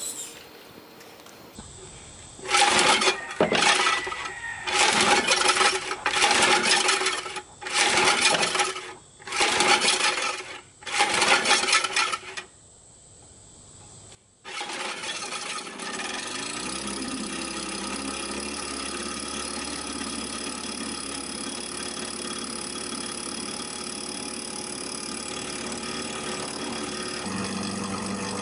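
Vintage 3-horsepower Evinrude two-stroke outboard motor being pull-started: about seven loud pulls on the starter rope, one every second and a half or so, then it catches about halfway through and runs steadily, its speed rising and settling as the propeller churns the water in a test barrel. It runs at a faster idle than the owner wants.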